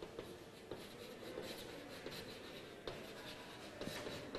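Chalk writing on a blackboard: faint scratching strokes with a few sharper taps as the chalk meets the board.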